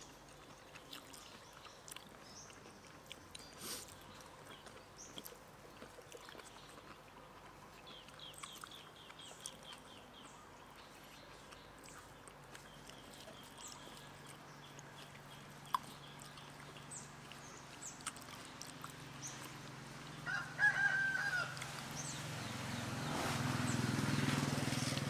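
A rooster crowing, a short call about twenty seconds in that is the loudest sound, over faint clicks and scattered high chirps. A low hum swells in the last few seconds.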